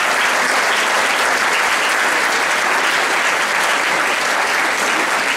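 Theatre audience applauding, steady sustained clapping.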